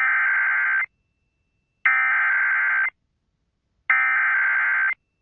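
Emergency Alert System SAME header: three bursts of digital data tones, each about a second long with about a second of silence between them, encoding a severe thunderstorm warning ahead of the broadcast.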